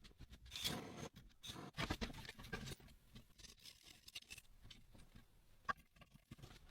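Hand work on chainsaw parts: irregular light clicks and short scraping, rustling strokes, busiest in the first three seconds, then a few scattered clicks.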